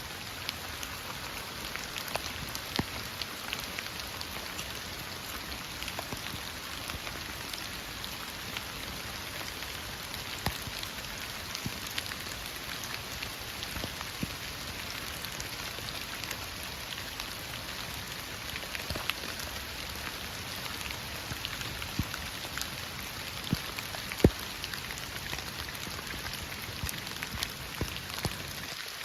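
Heavy rain falling steadily, a dense hiss with many separate drops striking close by; one louder drop hits about 24 seconds in.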